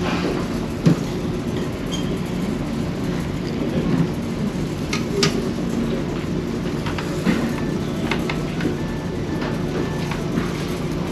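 Steady low drone of the ferry's engines and machinery while underway, with a few sharp clinks of metal serving tongs against buffet dishes.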